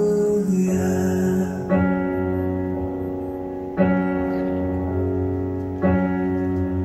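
Slow piano music: sustained chords, a new one struck about every two seconds.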